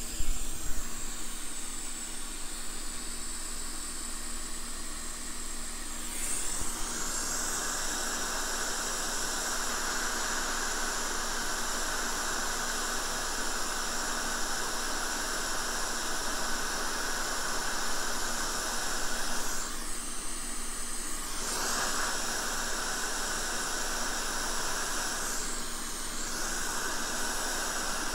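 Hot air rework station blowing a steady hiss of hot air onto a replacement MOSFET, reflowing the solder to seat it on the board. The hiss gets louder about six seconds in and drops away briefly twice in the second half.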